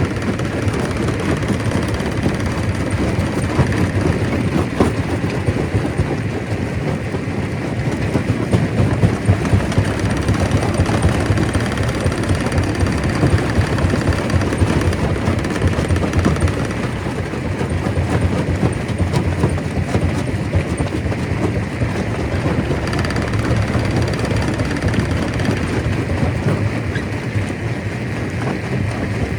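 Stone crusher running under load: a steady heavy rumble with dense, irregular rattling and knocking of rock being broken.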